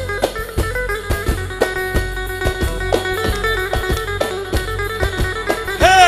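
Instrumental break of a Turkish folk song: a bağlama plucks a quick melodic line over keyboard and a steady drum beat. A man's singing voice comes in at the very end.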